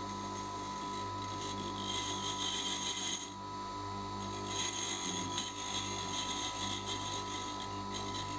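Bench grinder running with a steady hum while a dressing tool is fed across the face of its grinding wheel, dressing it: a harsh grinding hiss about two seconds in, and again for about three seconds from the middle on.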